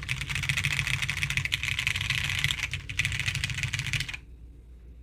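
Fast typing on a custom mechanical keyboard with lubed Hyperglide MX Brown tactile switches, a polypropylene plate and dye-sub Shenpo 1953 keycaps. It is a dense stream of keystrokes that stops about four seconds in.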